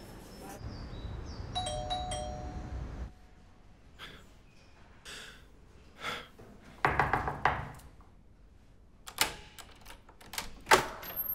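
A doorbell chimes briefly about two seconds in, a few steady tones sounding together. It is followed by scattered knocks and clicks, the loudest near the end.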